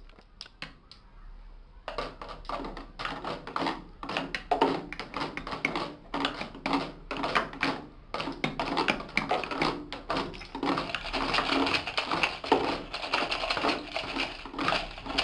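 Quick, irregular tapping and clattering on plastic bottles, tubs and cans, played by hand as homemade percussion, starting about two seconds in and growing into a denser rattle from about ten seconds in.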